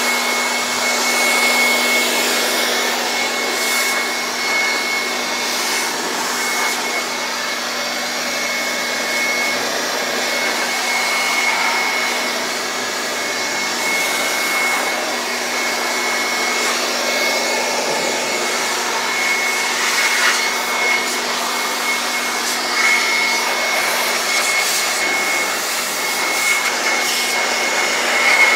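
Handheld corded electric dust blower running steadily, a rush of air with a steady high motor whine, blowing dust out of an open desktop computer case. A few light knocks sound over it in the second half.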